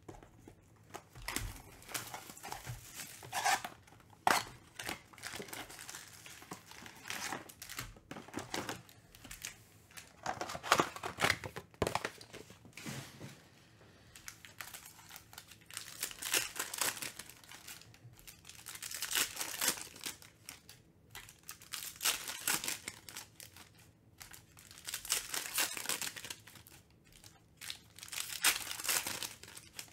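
Foil Panini Mosaic football card packs crinkling and tearing open in the hands, with cards sliding against each other, in irregular clusters of rustling every few seconds.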